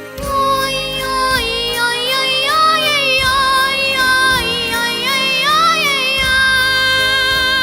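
A young girl singing long held notes with slides between pitches, with no clear words, over a backing track with a steady beat.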